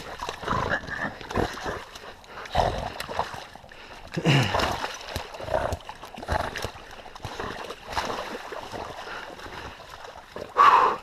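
A caught feral hog and a catch dog struggling in wet ground: splashing and thrashing, with a short grunt about four seconds in and a loud squealing cry near the end.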